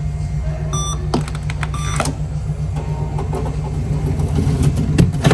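Steady low rumble of a car's engine and tyres heard from inside the cabin while driving. Two short electronic beeps sound about a second apart in the first two seconds.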